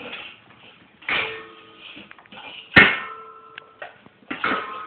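A dog eating from a stainless steel bowl in a raised stand, knocking the bowl so it clanks and rings. There are three knocks about a second and a half apart, the loudest near the middle.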